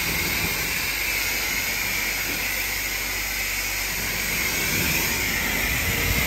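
High-pressure water jet from a self-serve car wash spray wand, hissing steadily as it blasts pre-soak foam off a car's body panels and wheels.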